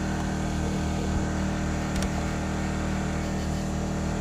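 A small engine on a bowfishing boat running steadily at an even speed, with a faint click about two seconds in.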